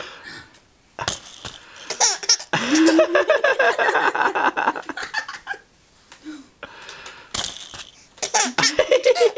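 A 13-week-old baby laughing in repeated bursts, the longest lasting about three seconds starting a few seconds in, with more laughs near the end.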